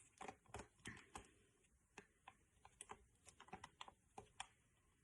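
Near silence with faint, irregular light clicks and taps of a utensil against a mixing bowl as more corn flour is added to a too-runny cornflour, paint and water slime mix.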